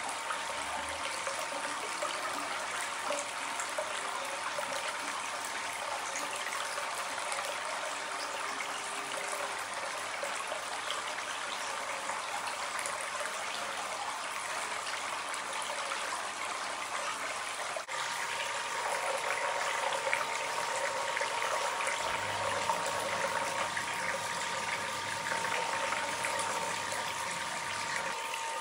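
Steady running and trickling water of a hot-spring bath, the spring water flowing into the open-air tub, with a brief break about two-thirds in.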